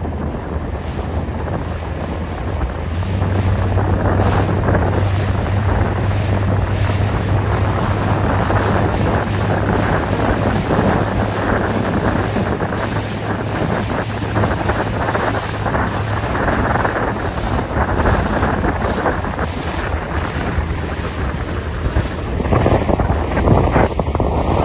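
Wind buffeting the microphone over choppy water slapping and splashing, with gusts coming and going and a low steady hum underneath for much of the time.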